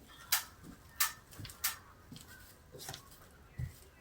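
Texture brush dabbed into wet drywall compound on a ceiling, giving a series of short, sharp wet smacks as the bristles are pressed on and pulled off to raise a stippled pattern.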